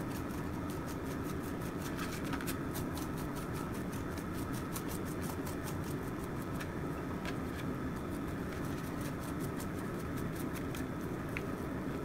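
Steady low background hum of room noise, with faint soft ticks and scrapes as a small knife and fingers peel the charred skin off a roasted poblano pepper on a cutting board.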